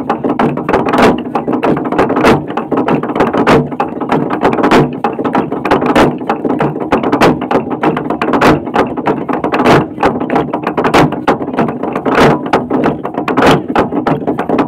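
A huge traditional log drum, a hollowed tree trunk, pounded by many men with upright wooden beaters: a dense, continuous clatter of wooden thuds, with a heavier stroke about every second and a quarter.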